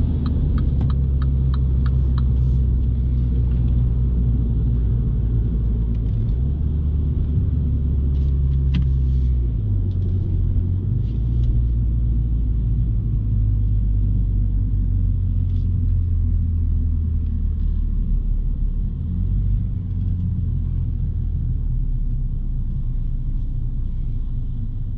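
In-cabin sound of a 2018 MINI John Cooper Works on track: a low, steady engine drone and road rumble, its pitch stepping to a new level several times, with light regular ticking in the first couple of seconds.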